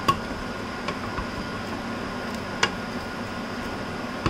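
Wooden spoon stirring chicken and papaya in a metal pot, knocking against it three times with short sharp clicks, over a steady hiss.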